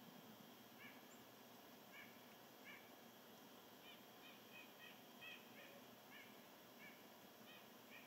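Faint bird calls: about a dozen short, repeated notes at irregular intervals, coming closer together around the middle.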